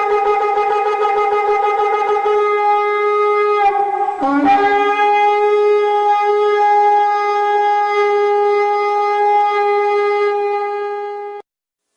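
A horn blown in two long, steady blasts on one note: the first breaks off about four seconds in with a short upward flick as the second begins, and the second is held to near the end, where it stops abruptly.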